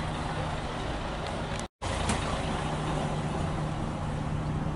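Diesel bus engine idling steadily, a constant low hum over general background noise. The sound drops out completely for a split second a little under two seconds in, then the idling carries on.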